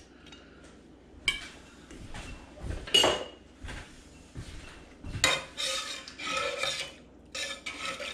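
A metal spoon and a stainless steel pot: a sharp metallic clank against the pot about three seconds in, then the spoon stirring and scraping through thick beans in repeated strokes from about five seconds on.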